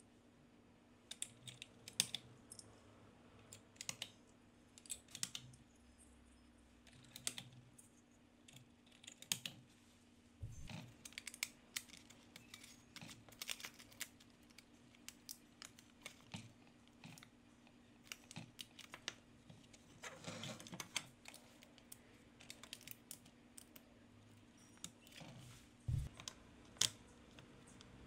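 Plastic keycaps and parts of a disassembled IBM Model M keyboard being handled, with scattered light clicks and clatter and a couple of dull knocks.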